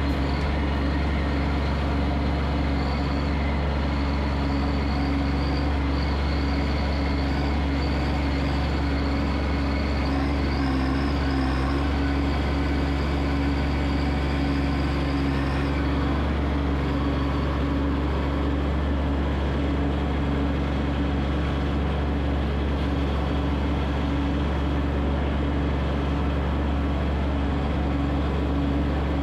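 Kubota B2301 compact tractor's three-cylinder diesel engine running steadily, with a faint high whine that fades out about halfway through.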